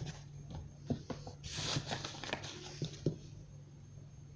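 Tarot cards handled and shuffled by hand on a cloth-covered table: soft taps and clicks, with one brief swish of cards about a second and a half in.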